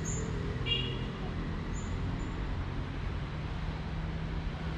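Road traffic: a steady low rumble of vehicle engines, with a few brief high chirps in the first two seconds.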